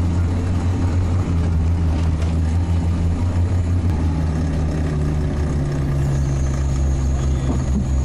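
Sherp all-terrain vehicle's diesel engine running steadily under way, heard loud inside the cab. A thin high whine joins in about six seconds in.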